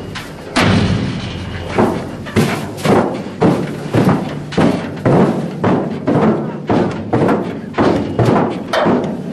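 Repeated heavy thumps on the steel crate of an elephant transport truck, about two a second and fairly evenly spaced, as the elephant shifts inside and the men work at the crate's side.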